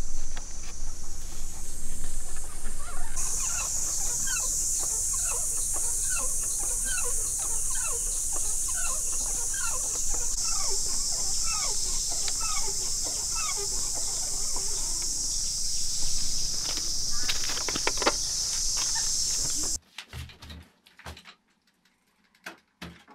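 Outdoor animal ambience: a steady high-pitched insect drone with a fast run of short descending calls, about three a second, like a hen clucking. About twenty seconds in it cuts to a much quieter enclosed space with a few faint wooden knocks.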